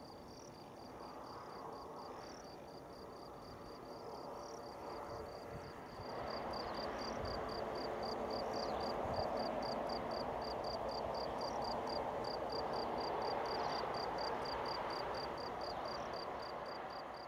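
Crickets chirping steadily, about three or four chirps a second, over the rush of distant airliner jet engines, which grows louder about six seconds in.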